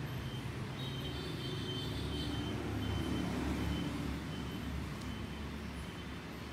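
Steady low rumble of background traffic, swelling slightly about halfway through.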